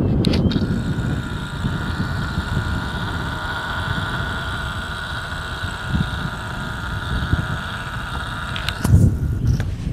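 Camcorder zoom motor whining steadily while the lens zooms out. It starts and stops with small clicks, and stops about nine seconds in.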